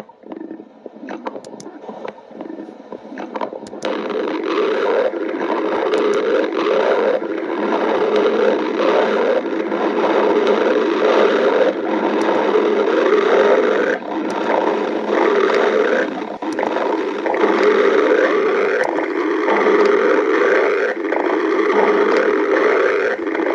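Human stomach growling and gurgling: faint at first with a few small clicks, then loud, continuous rumbling growls from about four seconds in.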